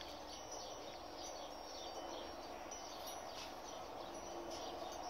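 Steady low background noise with faint, short high chirps scattered through it.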